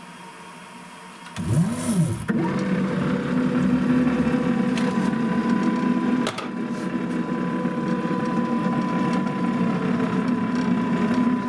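Hobby CNC milling machine running a 3D milling job: after a faint hum, its motors start about a second and a half in with a brief rise and fall in pitch, then run steadily with a steady hum, and cut off suddenly near the end.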